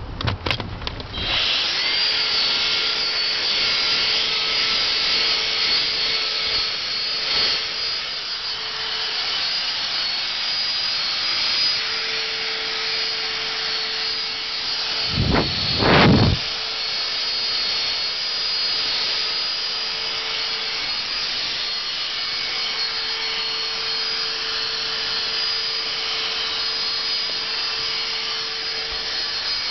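Dyson DC16 Animal cordless handheld vacuum switched on about a second and a half in, then running steadily with a high whine while vacuuming car seats and floor mats. About halfway through there is a brief louder surge in its sound.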